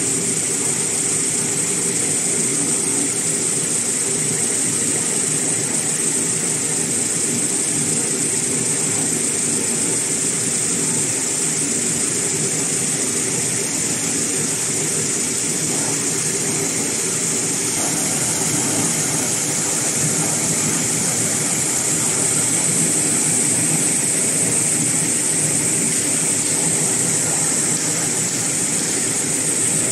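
CIL-SP-C toilet paper and kitchen towel making machine running steadily: a constant mechanical hum with a steady high-pitched whine over it.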